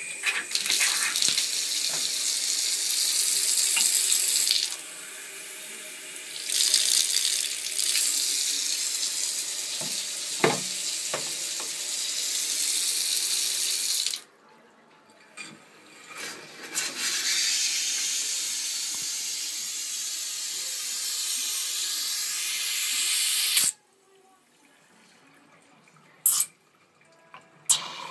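Bathtub mixer tap running with a high hissing rush of water, turned down once and shut off twice. It is quiet for the last few seconds apart from a few sharp clicks.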